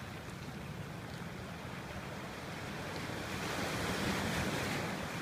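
Sea waves washing up on a cobble beach, the surf swelling louder about three seconds in.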